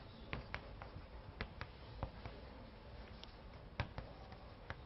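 Faint, irregular small clicks and taps, about ten of them spread unevenly over low room tone, the loudest nearly four seconds in.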